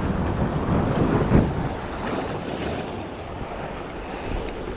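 Sea waves washing and breaking against the rocks of a seawall, with wind buffeting the microphone. A heavier surge comes about a second in, then the wash settles to a steadier hiss.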